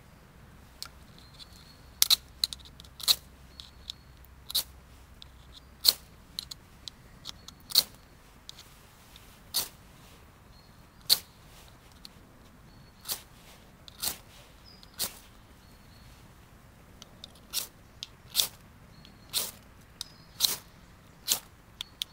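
Ferro rod scraped hard with a metal striker over and over, about twenty sharp rasping strikes at irregular intervals of roughly a second, showering sparks onto tinder in a small metal stove that is not catching.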